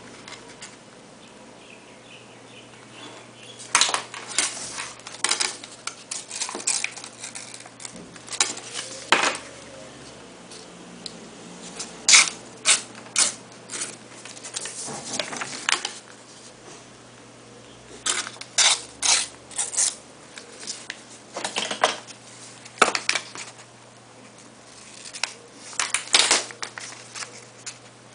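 A paper plane being handled on a desk with a plastic ruler and pen: clusters of sharp clicks, taps and scrapes with paper crackling, every few seconds with quiet gaps between.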